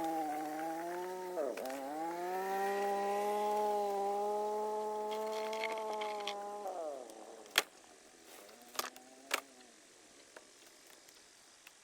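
An engine running at speed, its pitch dipping sharply about a second and a half in and then recovering, before it winds down near the seven-second mark. Then three sharp knocks follow.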